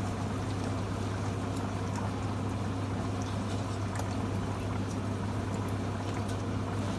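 Steady low hum and hiss from a running motor or fan, with a few faint scattered ticks.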